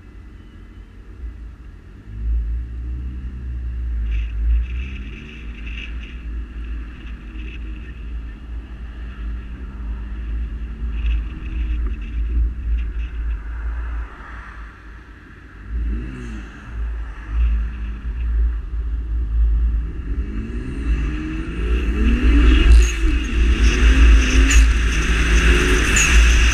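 BMW 135i's N54 twin-turbo straight-six, on an MHD stage 1 tune with a 3-inch downpipe-back straight-through exhaust, pulling away and accelerating, its pitch climbing and dropping with each gear. The loudest, hardest pull comes near the end.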